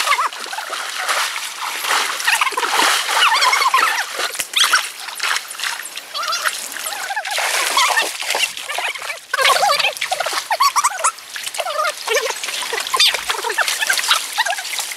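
Water splashing, with many short, high animal calls over it.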